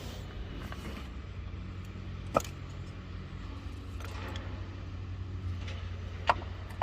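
Two sharp clicks a few seconds apart, as spark plug lead boots are pushed down and snap onto the plugs, over a steady low background rumble.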